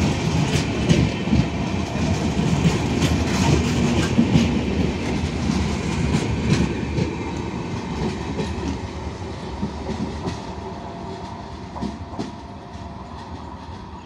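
Passenger coaches of an express train rolling past, with rapid clickety-clack of wheels over the rail joints. The sound fades through the second half as the last coach passes and the train draws away.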